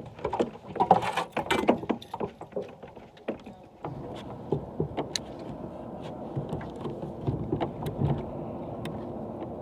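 Knocks and clatter of gear being handled in a fishing boat, then, about four seconds in, a small motor on the boat starts and runs with a steady hum.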